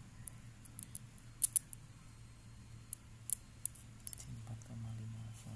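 Low steady electrical hum from a switching power supply under load, stronger for about a second near the end, with scattered sharp, high-pitched ticks and clicks.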